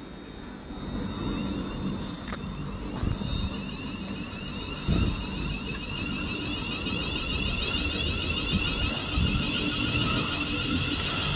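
Electric multiple-unit train pulling away from a station, its traction motors giving a whine that climbs in pitch again and again as it accelerates over a low rumble. A sharp knock comes about five seconds in.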